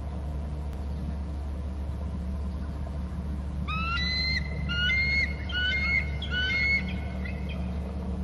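Bald eagle calling: a rapid series of high, piping notes that starts about three and a half seconds in and lasts about four seconds, over a steady low rumble.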